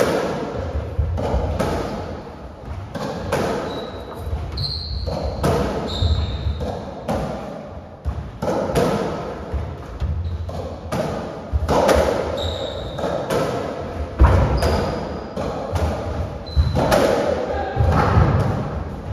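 Racketball rally on a squash court: the ball smacking off the walls and floor and off the racket strings, about one hit a second, echoing in the court, with brief high squeaks from the players' shoes on the wooden floor.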